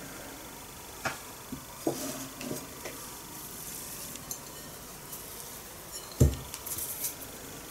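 Hands working a date-paste candy on ceramic plates: scattered light knocks and clinks, then a single loud dull thump about six seconds in, followed by a fine crackling rustle as the ball is rolled in chopped nuts.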